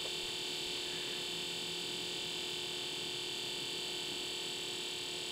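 Steady background hiss with faint, high, unchanging tones and no distinct events.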